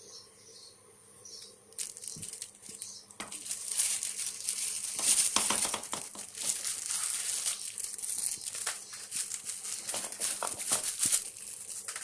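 Plastic packaging crinkling and rustling as it is handled and unwrapped. The crinkling starts about two seconds in and continues as a dense, irregular crackle.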